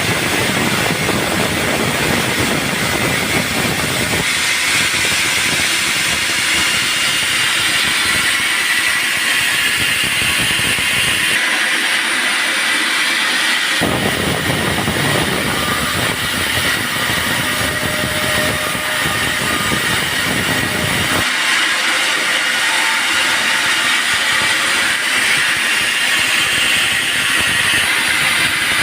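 Bandsaw sawmill running and cutting a teak log: a steady loud rushing, mechanical noise whose low end cuts in and out abruptly about four, eleven, fourteen and twenty-one seconds in.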